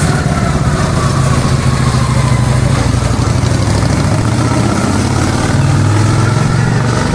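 Cruiser motorcycle engine running steadily at low speed, its note dipping slightly near the end.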